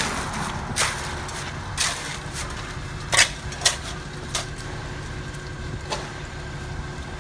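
Concrete mixer truck running steadily, with about six sharp knocks and scrapes from shovels and tools working the wet concrete, the two loudest a little before the middle.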